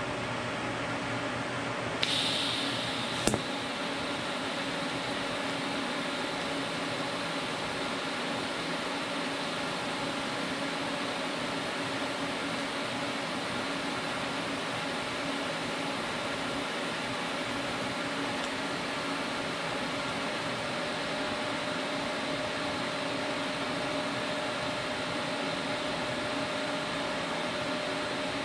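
TIG welding arc from an Everlast 255EXT welder. It strikes about two seconds in with a sharp click, then hisses and hums steadily while a bead is run at about three-quarter pedal, around 120–125 amps.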